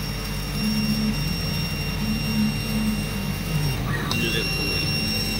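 Laser cutting machine at work with its smoke-extraction vacuum blower running: a steady rushing hum. A thin high whine from the machine stops for a moment about four seconds in, then resumes.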